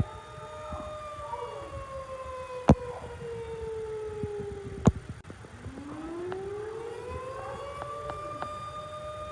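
Outdoor tornado warning siren sounding a steady wail that slides slowly down in pitch, drops away about five seconds in, then winds back up to its full pitch and holds; fainter gliding tones overlap it. Two sharp knocks, the loudest sounds, come near three and five seconds in.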